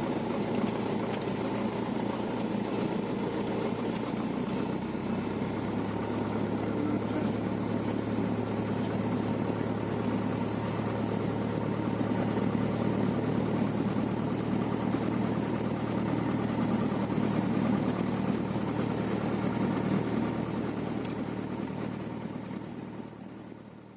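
Cessna 172's piston engine running steadily at low power, a deeper steady hum joining about five seconds in, then fading out over the last few seconds.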